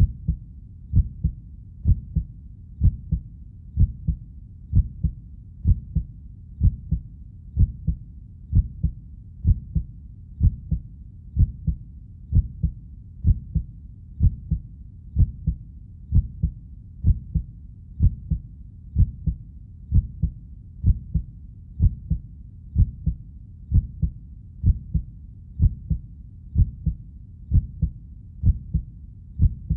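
Heartbeat: a steady double thump, lub-dub, repeating about once a second.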